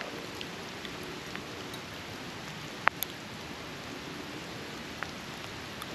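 Steady hiss of a snowstorm, with a few faint ticks and one sharp click about three seconds in.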